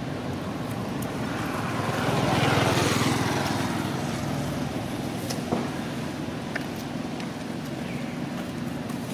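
A motor vehicle passing: engine and road noise swell about two seconds in and fade away again, over a steady low hum.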